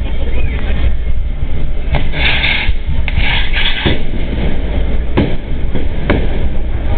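Spark fountains on a burning fireworks tower (castillo), making a continuous loud rushing hiss over a low rumble. Louder bursts of hissing come about two and three seconds in, and two sharp pops come near the end.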